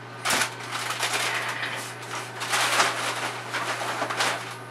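Rustling and crinkling of boxes, packets and a fabric reusable shopping bag as supplies are taken from a cabinet and packed, in several separate bursts.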